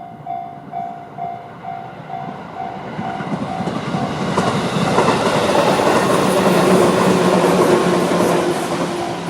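JR-standard electronic level-crossing warning bell pulsing at about two strokes a second. From about three seconds in it is drowned out by a 211-series electric train running over the crossing, loudest around six to eight seconds in, with a steady hum from the train. The bell comes through again as the train noise eases at the end.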